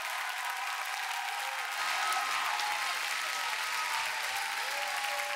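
Large church congregation applauding, with a few voices calling out over the clapping.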